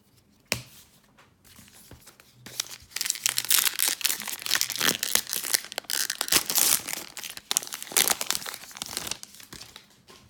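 Crinkly wrapper of a 2019 Topps Heritage baseball card pack being torn open and crumpled. A single sharp click comes near the start, then a dense stretch of crackling runs from about two and a half seconds in to about nine seconds.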